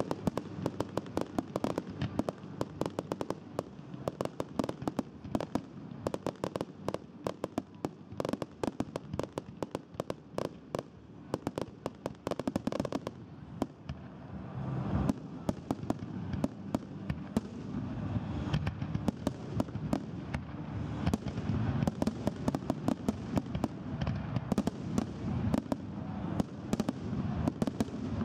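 Aerial firework shells bursting in a dense finale barrage: rapid bangs and pops, many a second. The barrage thins briefly about halfway through, then builds again into a heavier, rumbling run of bursts.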